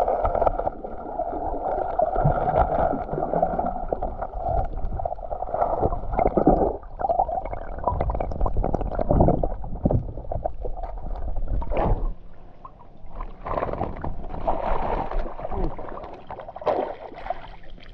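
Muffled underwater rumble and gurgling as a woven bamboo fish trap is handled below the surface. About four seconds from the end the trap is lifted out, with water splashing and dripping off it.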